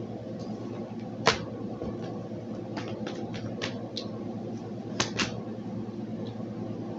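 Scattered soft clicks and taps of tarot cards being handled over a steady low hum. There is a sharper click about a second in and two close together about five seconds in.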